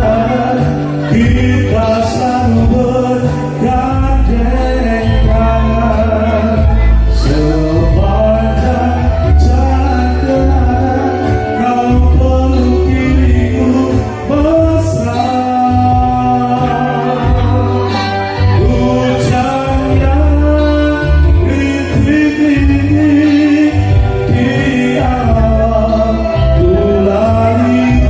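A man sings into a microphone over a live band with keyboards and electric guitar, amplified through a PA system during a sound check. The bass is heavy and rhythmic.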